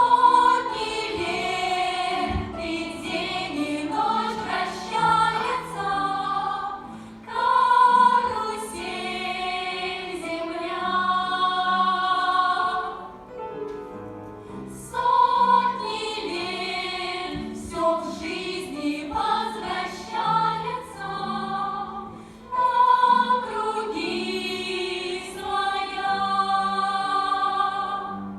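A song sung by a choir of voices with musical accompaniment, in phrases that repeat about every 15 seconds.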